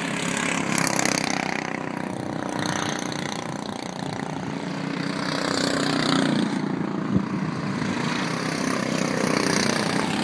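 Race car engines running as several cars lap a dirt oval, the sound swelling and fading as cars pass. A single sharp click about seven seconds in.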